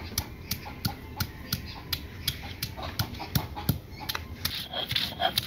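Garlic being ground on a flat stone slab with a stone grinding pestle (shil-nora), the pestle rocked and dragged back and forth in a steady rhythm of knocks and scrapes, about three strokes a second.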